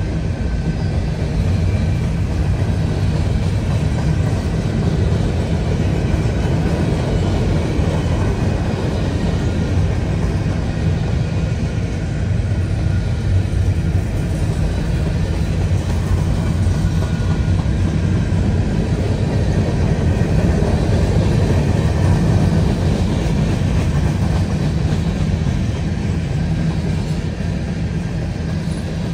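Freight train rolling past with a steady low rumble.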